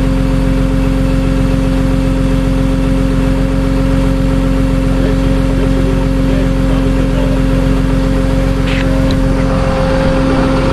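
A vehicle engine running steadily with a constant, even hum.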